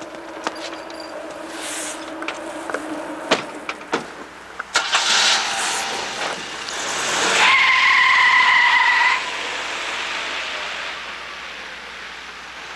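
Jeep Cherokee idling, two door thumps, then the SUV pulling away hard on wet pavement, its tyres hissing through water. Midway there is a tyre squeal of nearly two seconds.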